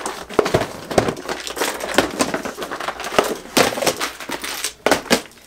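Full-size 14-inch plastic tackle boxes being lifted out of a fishing backpack and stacked on a table: a run of irregular hard plastic clacks and knocks over rustling of the bag.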